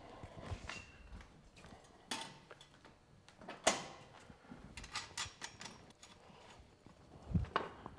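Scattered clicks and light knocks of a bicycle wheel and pump being handled, a handful of sharp taps spread irregularly through, loudest a little before the middle and near the end.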